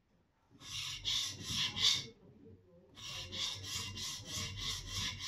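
Steel plane iron rubbed back and forth by hand on a coarse diamond sharpening plate, a rasping scrape with each stroke. It is grinding back to the edge to raise a burr. There is a short run of strokes, a pause of about a second, then a longer even run at about four strokes a second.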